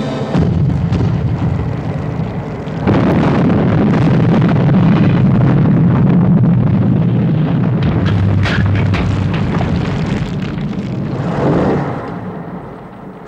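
A shell fired from a gun, then a long, loud, low rumbling roar of explosion and fire with scattered cracks. A final blast swells near the end, then dies away.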